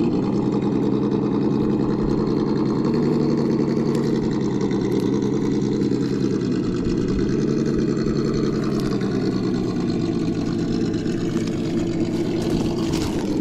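Simulated engine sound from a Sense Dual ESS sound kit, played through an RC crawler's onboard speaker, running steadily at low revs. Its pitch sags and rises slightly as the truck is driven.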